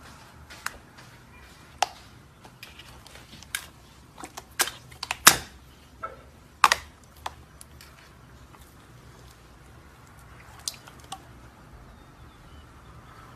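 Slime being pressed and squeezed by hand, giving irregular sticky clicks and small pops, with a cluster of louder pops in the middle.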